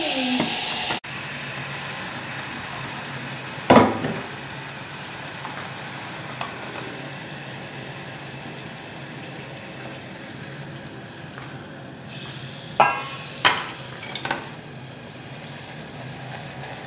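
Beef broth pouring from a stainless steel pot through a mesh sieve into a saucepan, cutting off suddenly about a second in. Then a steady sizzling hiss, with one loud knock a few seconds in and a few sharp metal clinks of pots and sieve later on.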